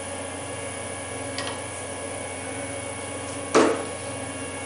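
Metal shaper running slowly while cutting a keyway in a gear, its motor humming steadily, with a knock from the ram stroke about every two seconds; the loudest knock comes near the end.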